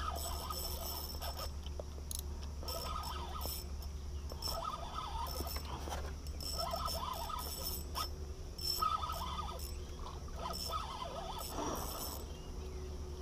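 Spinning reel being cranked to wind in line, its gears and rotor rattling and whirring in bursts about every one and a half seconds.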